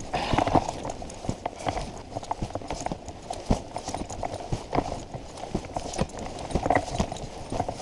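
Footsteps through grass with irregular knocks and clicks, several a second, from the carried camera jolting along.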